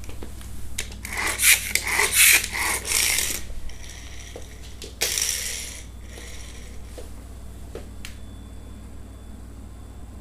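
Small toy car rattling and skittering across a wooden floor as it is batted around, loudest in a spell during the first few seconds and again in a sudden burst about five seconds in, then a few faint clicks.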